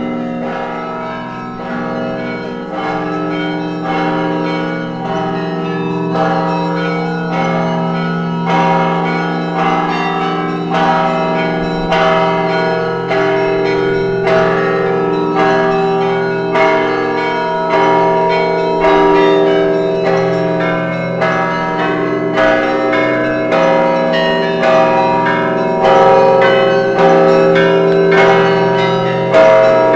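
Church bells pealing: a steady run of strokes about once a second, each ringing on in long overlapping tones, gradually growing louder.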